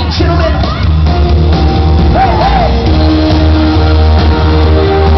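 Pop-rock band playing live through a loud PA, with heavy bass and held synthesizer chords. Fans in the crowd scream near the start and again about two seconds in.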